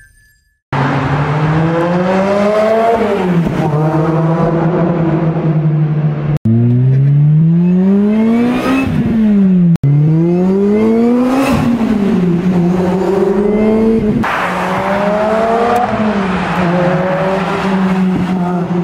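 Supercharged four-cylinder engine of a 2007 Lotus Exige S, through a Larini Club Sport aftermarket exhaust, accelerating hard in several spliced clips. The note climbs under throttle and drops back at each gear change, and the sound cuts abruptly between clips.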